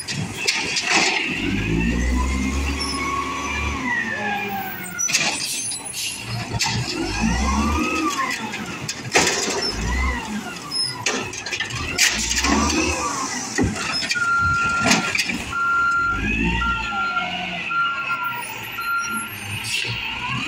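A 1999 Peterbilt 320 diesel garbage truck's engine revving up and down over and over, with several sharp hisses and clanks. About two-thirds of the way in there is a run of about six evenly spaced beeps.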